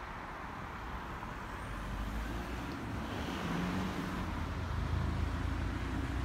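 Motor vehicle engine running on the street, a low hum that gets louder from about two seconds in, over a steady hiss of traffic noise.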